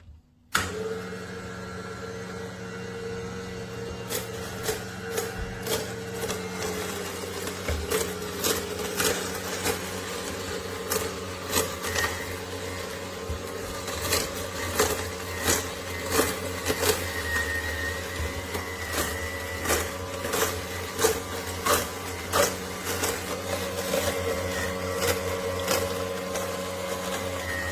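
AMZCHEF cold-press slow juicer running: a steady motor hum starts about half a second in, with many sharp cracks and snaps as the auger crushes produce.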